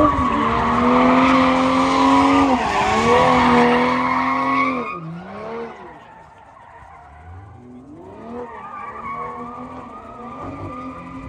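A drifting car's engine held at high revs with its tyres skidding for about five seconds, then the sound falls away sharply and the engine is heard farther off, revving up and down.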